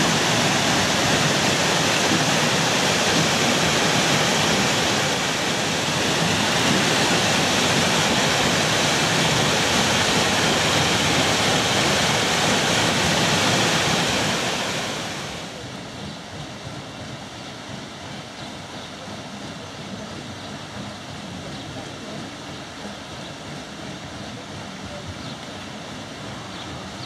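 Water rushing and splashing at a watermill's wheel and stream, a loud, steady rush. About halfway through it falls to a much quieter, softer rush, with a few faint high ticks near the end.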